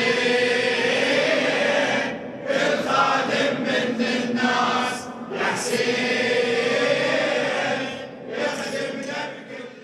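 Male voices chanting a Shia latmiya (devotional lament) in long, drawn-out phrases with short breaks between them, fading out near the end.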